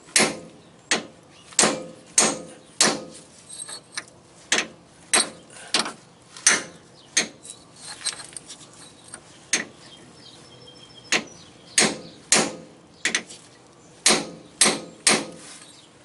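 Hammer striking a hard steel chisel held against a seized hydraulic cylinder mount: about two dozen sharp metal-on-metal blows at an uneven pace, kept short because he cannot take a hard swing, with a brief pause a little past halfway. The seized part is not yet moving.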